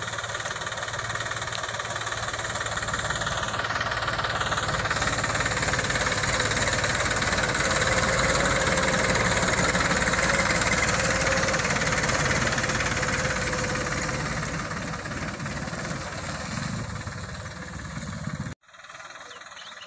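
New Holland 3230 tractor's diesel engine running under a full load of paddy straw as the tractor drives past close by. It grows louder to a peak about halfway through, then fades, and cuts off abruptly near the end.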